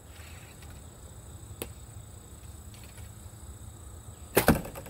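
A compound bowfishing bow being shot. Near the end the string snaps on release and, a fraction of a second later, the arrow thuds into a foam block target. A single faint click comes earlier.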